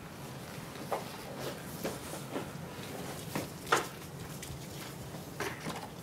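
A few light, scattered knocks and clicks over a low, steady room hum.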